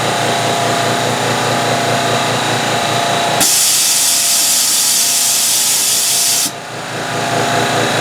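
Shop air compressor and CNC mill running with a steady pulsing machine noise. About three and a half seconds in, a loud blast of compressed air hisses for about three seconds and cuts off suddenly, and the machine noise comes back.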